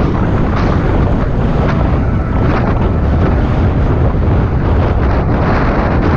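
Wind buffeting the microphone of a mountain bike rider descending a dirt singletrack, with the Intense Carbine's tyres rolling over dirt and a few light rattles from the bike.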